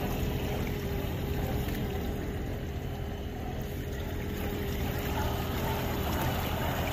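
Fishing boat's engine running steadily under way, a constant low hum with a steady tone over it.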